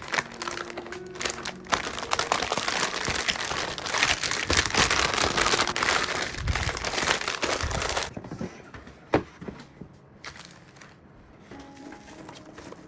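Packaging being handled: loud crinkling and rustling for about six seconds, then quieter handling with a couple of sharp clicks.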